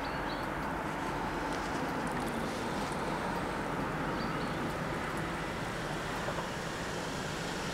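Steady rushing noise of wind and road traffic, with no bells or rhythm, and a couple of faint short high chirps.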